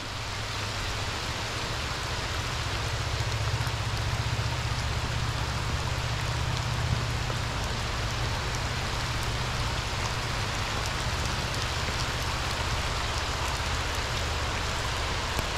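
Heavy rain falling steadily in a downpour, with a low rumble underneath.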